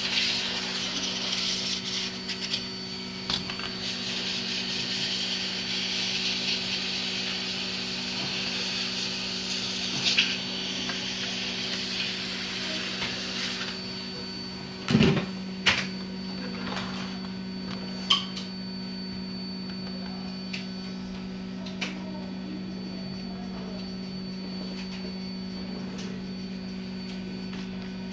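Steady rush of air from a cleaning hose worked over a laptop motherboard to clear off moisture. The air cuts off about 14 seconds in, and a few sharp knocks and taps follow as the board is handled, over a steady low hum.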